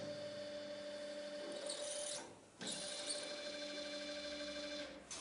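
Special-purpose drilling and tapping unit running with a steady motor hum and whine. It stops a little after two seconds in and starts again about half a second later, like two machining cycles.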